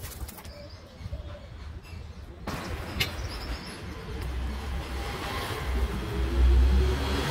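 A dove or pigeon cooing softly. From about two and a half seconds in, a steady rushing noise with a low rumble takes over and grows louder.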